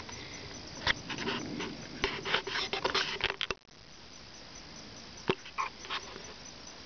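Rustling and sharp clicks, densest in the first half, then fainter with a few single clicks near the end, over a steady low outdoor hiss.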